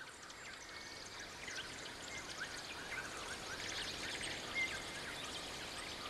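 A chorus of small songbirds chirping, with many short high calls overlapping over a faint hiss and growing gradually louder.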